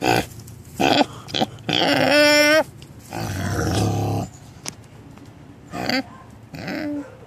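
Pot-bellied pig grunting close up: a run of short grunts, a longer, higher-pitched call about two seconds in, then a long low grunt and two more short ones near the end.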